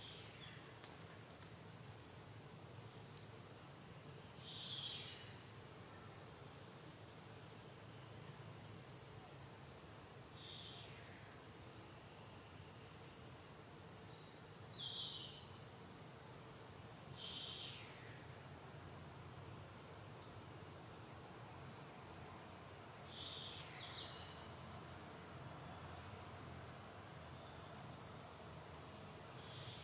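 Forest ambience: a steady, high insect drone, with short high-pitched calls every two or three seconds, several of them falling steeply in pitch.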